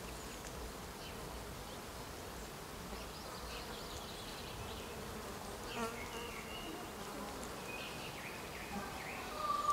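Quiet outdoor ambience with an insect buzzing and a few short, faint high tones.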